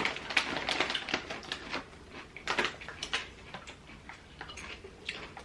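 Buldak spicy potato chips crunching as they are chewed close to the microphone: an irregular run of crisp crackles, densest in the first second and again about halfway through, then thinning out.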